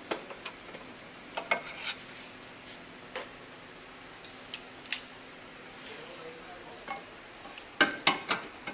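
Ratchet wrench with a socket extension on a car subframe bolt. Scattered metallic clicks and clinks come first, then a quick run of ratchet clicks near the end, which is the loudest part.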